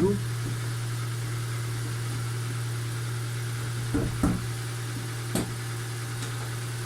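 Kia Ceed's 1.6-litre petrol four-cylinder engine idling steadily shortly after a cold start, with a few short sharp clicks about four and five seconds in. The owner hears a specific metallic knock from this engine that the dealer could not diagnose.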